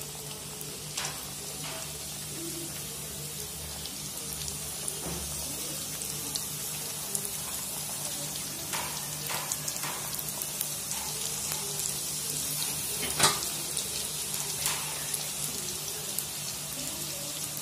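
Small puris frying in hot oil: a steady sizzling hiss with scattered crackles and pops, one sharper pop about two-thirds of the way through.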